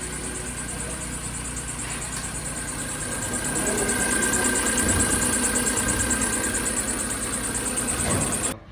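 Volvo S80 2.5T five-cylinder turbo engine idling, with a steady high-pitched squeak from the accessory belt drive that pulses rapidly. The sound grows louder about three and a half seconds in and cuts off abruptly near the end. The squeak is the air-conditioning compressor belt slipping, its rubber soaked with spilled power-steering fluid.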